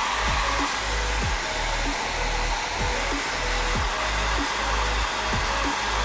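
Small handheld hair dryer running steadily, blowing air. Background electronic music with a regular beat plays underneath.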